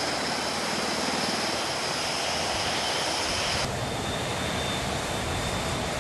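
Large helicopter flying low, a steady high turbine whine over the rotor and engine noise. About two-thirds of the way through it cuts off abruptly to wind and sea noise with a faint steady whine.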